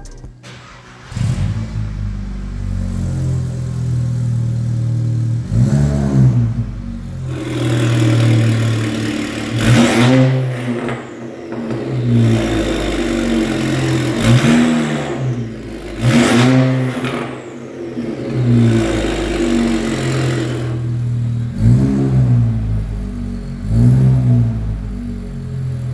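Volkswagen Golf 6 GTI's turbocharged four-cylinder engine, fitted with a 3-inch straight-pipe exhaust, idling loudly and blipped about eight times, each rev rising and falling back to idle. A high falling whistle follows the two biggest revs.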